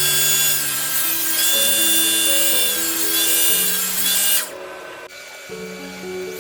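Background music with slow, stepping held notes over a power tool cutting wood. The tool's loud hiss and whine stops suddenly about four and a half seconds in, leaving only the music.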